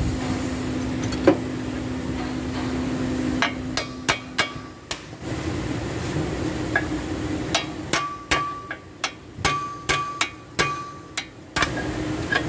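Hammer blows on steel suspension parts: about a dozen irregular strikes, several ringing with a clear metallic tone. The strikes begin a few seconds in, over a steady hum that fades out about five seconds in.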